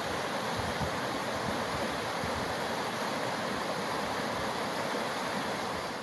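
Fast-flowing rocky burn rushing over stones in a steady rush of water, with low rumbles of wind buffeting the microphone.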